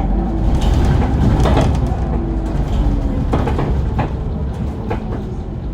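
Inside a Mercedes-Benz Citaro CNG city bus with a ZF Ecomat automatic gearbox, on the move: the drivetrain and road give a steady low rumble with short whining tones that change pitch. Several sharp rattles or knocks come from the bus body.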